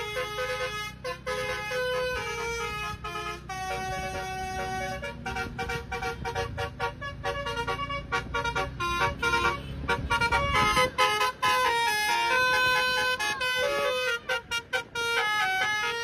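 Basuri telolet multi-tone horn on a coach bus playing a quick melody of bright tones that step up and down. The bus engine runs underneath and swells about halfway through as the bus passes.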